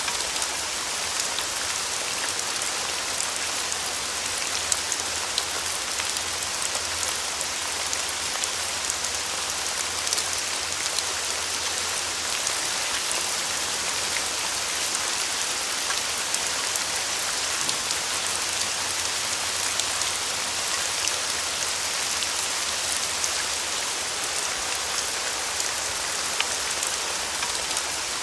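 Light rain falling steadily, a dense patter of individual drops striking a surface.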